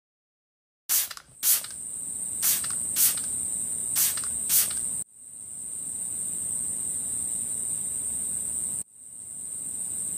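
Sound effects: a spray bottle squirting six short hissing times over a steady, high-pitched insect-like chirring buzz. The buzz cuts out briefly twice, near the middle and near the end.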